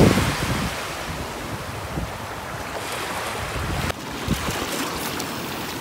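Small waves washing onto the shore, with wind blowing across the microphone.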